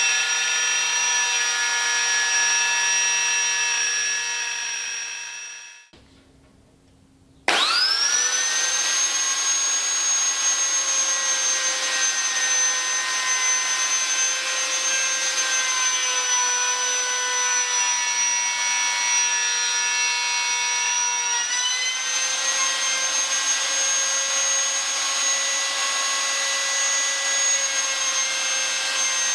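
Wood router running with a steady high whine while cutting a cable channel in timber. It fades away about five seconds in and goes quiet briefly. About seven and a half seconds in it is switched on again and spins up to speed, then runs steadily, its pitch dipping slightly now and then under the cut.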